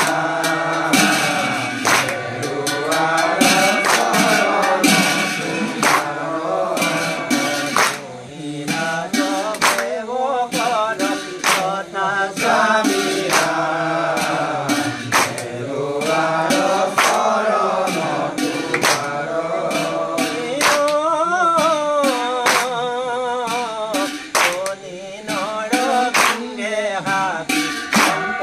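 Assamese naam-prasanga devotional singing, voices with wavering, ornamented melody lines, with sharp percussive strikes keeping time throughout.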